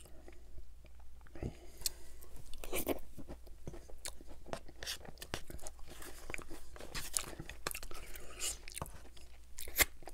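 Close-miked mouth sounds of eating a McDonald's McFlurry off a long plastic spoon: wet chewing, lip smacks and swallowing, with many short crunches and clicks.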